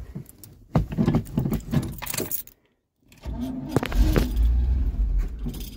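Starter cranking the 1974 Chevy C30's engine after about five years of sitting, the engine trying to catch, with keys jangling. The sound cuts out briefly about two and a half seconds in, and the cranking is loudest in the second half.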